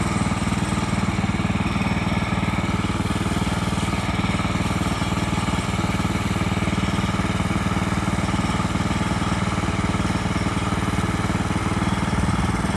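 A combustion engine running steadily at an even speed, with a fast, regular low pulse that does not rise or fall.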